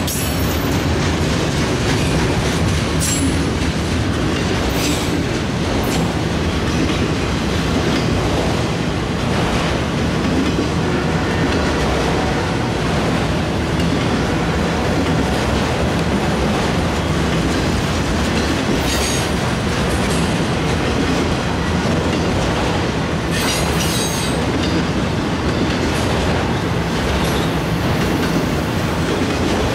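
Freight train of enclosed autorack cars rolling steadily past close by: a continuous rumble of steel wheels on rail with a clickety-clack beat. Several brief high-pitched squeals cut through, a few seconds in and again past the middle.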